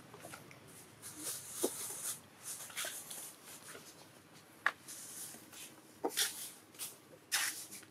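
Scattered rustles and soft clicks from a macaque mother and her nursing infant moving close by, the loudest rustles near the end.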